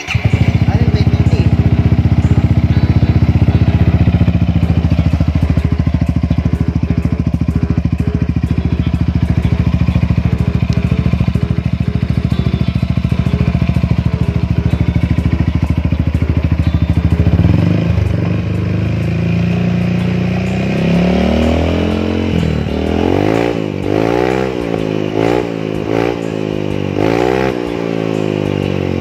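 Yamaha XMAX300 scooter's single-cylinder engine running through a newly fitted PR2 aftermarket exhaust. The note holds steady for about the first seventeen seconds, then the engine is revved up and down in a series of quick throttle blips toward the end.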